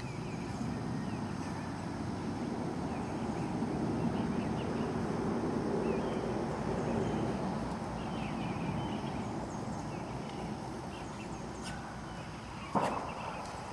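Low, rushing outdoor noise like wind on the microphone that swells and fades, with small birds chirping faintly at a few points and one sharp knock about a second before the end.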